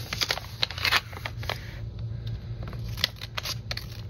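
Scissors snipping along the edge of a glossy package while it is handled and crinkles, a run of sharp clicks at first, then a few scattered snips.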